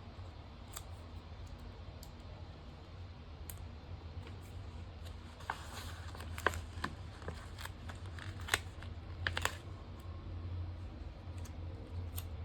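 Small clicks and paper handling sounds of sticker sheets and a paper planner being worked by hand, a cluster of them in the middle, over a steady low hum.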